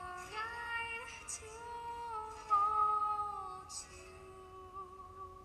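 A song with a high singing voice over music. The voice holds a long note about two and a half seconds in, then grows quieter toward the end.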